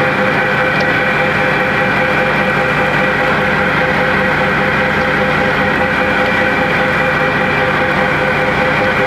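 Truck engine idling steadily, heard from inside the cab, with a constant hum.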